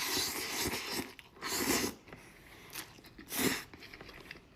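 Close-miked eating of Maruchan instant ramen noodles: three short bursts of wet mouth and chewing noise, the first at the start, then about a second and a half in, and again near three and a half seconds.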